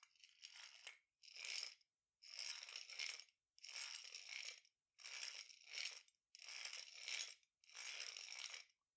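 Hand drill's gear wheel and pinion turning as its crank is wound, a faint gear noise that comes in about seven short spells roughly a second apart.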